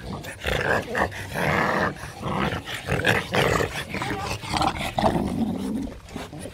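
An English bulldog and a French bulldog chasing bubbles, making a string of short, rough breathy noises and grunts, with a few brief higher-pitched sounds near the end.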